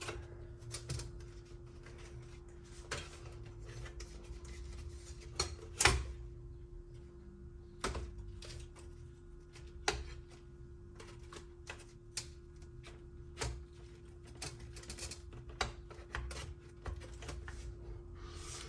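Macintosh Plus logic board being slid into its metal chassis: scattered clicks, knocks and scrapes, the loudest knock about six seconds in. A steady low hum runs underneath.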